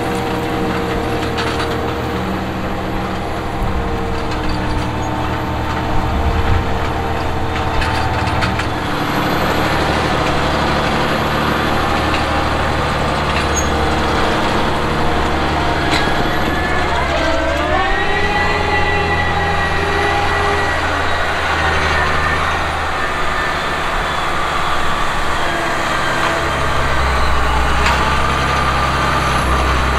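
The diesel engine of a Fendt 1167 Vario MT track tractor running steadily under heavy load as it pulls a nine-shank V-Ripper subsoiling 16 inches deep. A little past halfway the engine note dips briefly, then settles at a slightly higher pitch.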